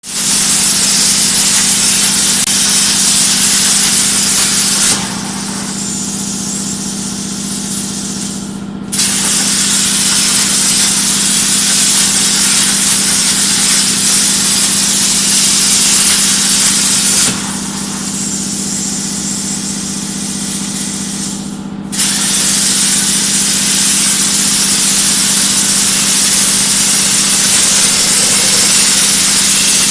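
CNC plasma cutting torch hissing steadily as it cuts sheet metal, over a constant low hum. The hiss drops away about five seconds in and again about seventeen seconds in, for roughly four seconds each time, then starts again abruptly.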